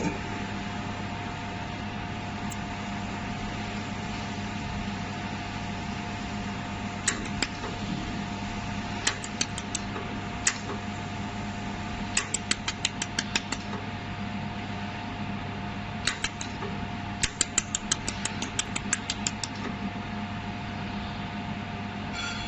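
Jewelry laser welding machine running with a steady hum from its cooling fan and power unit. From about seven seconds in come sharp snapping clicks, some single and some in quick runs of about five or six a second: the laser pulses firing on metal.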